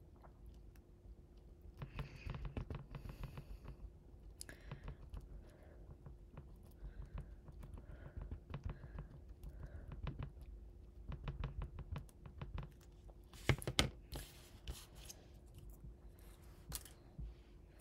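Quiet handling noises: soft rustling, scratching and small clicks as fingers work glue into a pike fly's synthetic fibres and press a stick-on eye in place. One sharper click comes about thirteen and a half seconds in, over a faint steady hum.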